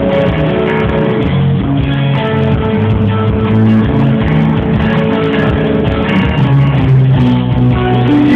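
Rock band playing, guitars to the fore, loud and steady.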